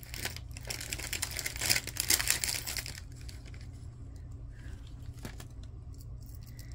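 Packaging crinkling and rustling as an item is unwrapped by hand, dense for about the first three seconds, then only a few scattered crackles.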